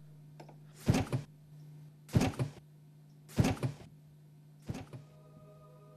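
Four heavy double thuds, about a second and a quarter apart, like blows against a door. A soft held music chord comes in near the end.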